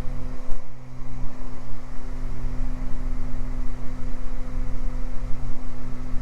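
Beechcraft Baron's twin piston engines and propellers droning steadily in a climb, an even hum over a low rumble and hiss.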